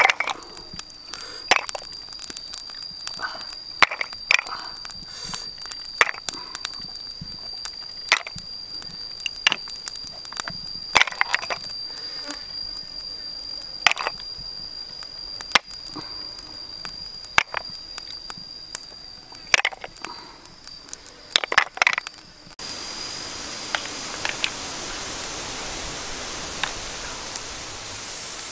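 Irregular sharp clicks and knocks of snail shells being handled in a wicker basket and set on a stick grill over a wood fire, with a steady high whine behind them. About 22 seconds in this cuts to the steady rush of a stream.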